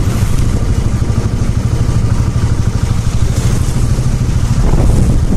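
A motorcycle being ridden: its engine runs steadily under a loud, constant low rumble of wind and road noise.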